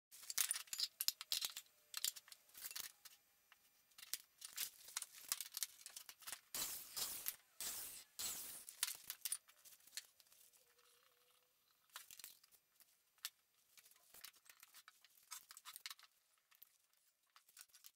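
Hand woodworking on a board at a workbench: a run of irregular scraping, rasping strokes and knocks, thinning out into scattered clicks and taps as bar clamps are set near the end.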